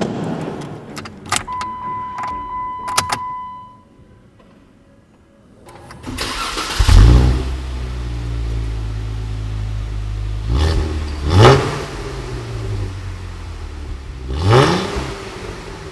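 A 2017 Jeep Wrangler's 3.6-litre V6 cranked and started about six seconds in, flaring up loudly and settling to a steady idle, then revved twice briefly. Before it, the tail of background music with a few clicks and a short steady tone.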